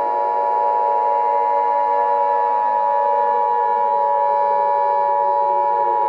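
Emergency Alert System attention signal: a loud, steady alert tone held without a break. Beneath it, lower siren-like tones drift slowly down in pitch and then back up.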